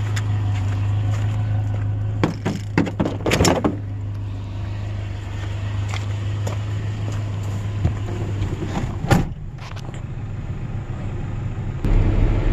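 A vehicle running, heard from inside the cab as a steady low hum. A few sharp clicks and knocks come a couple of seconds in, another sharp knock about nine seconds in, and the hum grows louder near the end.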